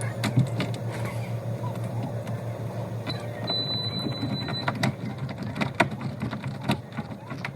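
A small motor running steadily, with scattered sharp clicks and knocks over it. A thin high steady tone sounds for about a second midway.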